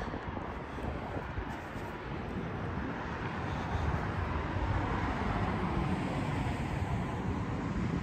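Wind rumbling on the microphone, mixed with the drone of a passing engine that grows a little louder through the first half and then holds.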